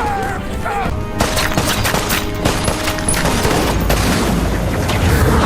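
Rapid gunfire and sharp impacts over a dramatic music score, starting about a second in.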